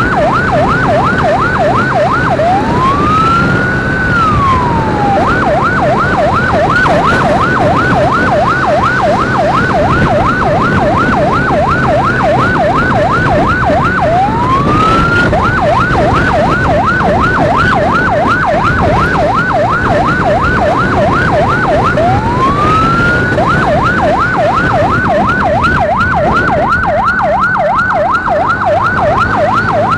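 Electronic emergency siren on a fast yelp, about four sweeps a second, broken three times by a single slow rising wail. A motorcycle engine hums steadily underneath.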